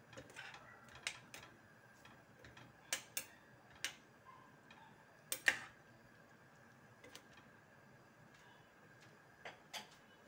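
Metal spoon clinking against a stainless steel pan while stirring: about ten sharp taps at irregular intervals, the loudest about five and a half seconds in.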